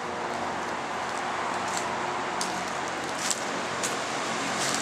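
Steady hum and hiss of machinery running, with about six brief dry crackles scattered through it, footsteps crunching on fallen dry leaves.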